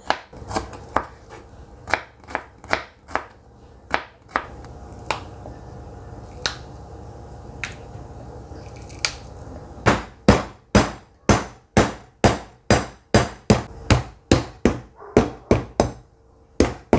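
Kitchen knife cutting through shallots, chillies and lemongrass and striking a plastic cutting board: a few scattered cuts, then a quick, even run of chops, about three a second, from about ten seconds in.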